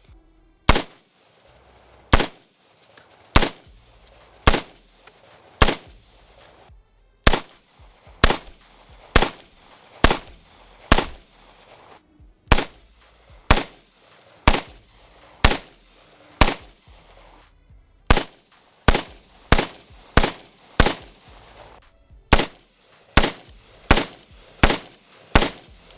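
AR-style rifle fitted with a Dead Air Pyro muzzle device in its linear-comp configuration, firing single shots at a steady pace of about one a second, roughly thirty in all.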